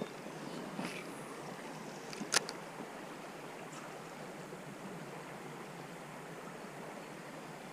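Creek water running steadily, with one sharp click a little over two seconds in.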